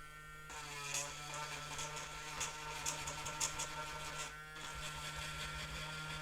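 A steady electrical hum, like a small motor running, with a few light clicks over it.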